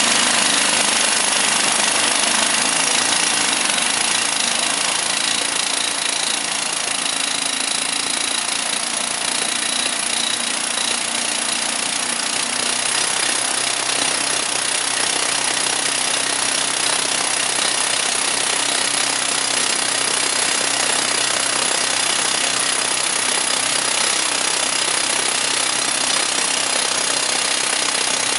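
Hand-held hydraulic rock drill hammering as it bores into a reinforced concrete diaphragm wall. The hammering is steady and unbroken.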